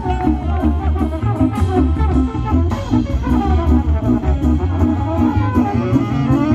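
Live swing band playing: saxophones and trombone over upright bass and drum kit, with a steady beat.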